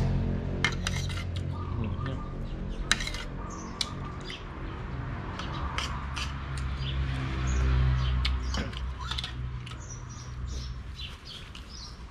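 Metal spoon and fork clinking and scraping against a plate and bowl while eating, in scattered sharp clicks. Birds chirp in the background, over a low steady hum that swells about eight seconds in.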